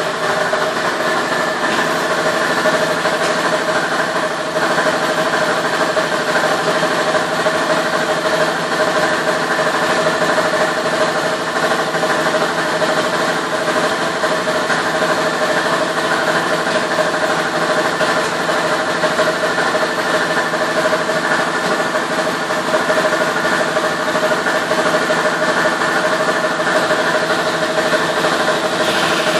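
Industrial plastics-processing machinery running steadily: a constant mechanical hum with a strong steady tone and no pauses or impacts.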